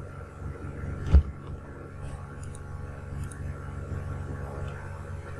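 Steady low electrical hum in the background, with a single thump about a second in.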